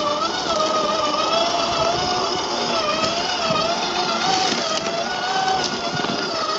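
Scale RC crawler's 50-turn electric motor and geared drivetrain whining steadily as it crawls over rocks. The pitch wavers up and down with the throttle, with a few light clicks from the tyres on the stones.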